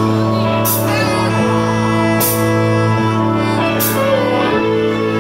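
Live rock band playing, the electric guitars and bass holding long sustained chords, with a cymbal crash about every second and a half.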